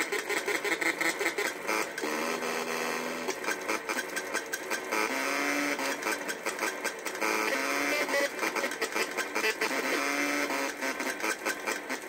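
Electronic music from a homemade noise instrument patched into a modular synth: a sequence of short pitched notes stepping up and down over a fast, glitchy clicking.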